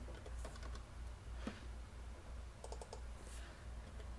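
Faint, scattered clicking of a computer keyboard and mouse: a few single clicks and a quick run of several near the three-second mark, over a low steady electrical hum.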